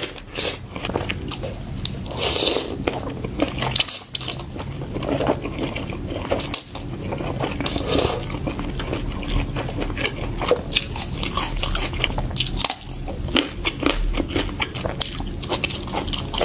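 Close-miked eating: repeated crisp, crunchy bites and chewing, first of a cob of corn, then of pieces from a spicy Thai salad eaten by hand.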